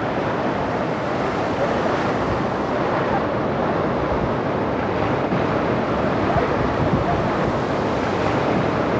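Sea surf washing in over rocks and sand in shallow water, a steady rush of waves.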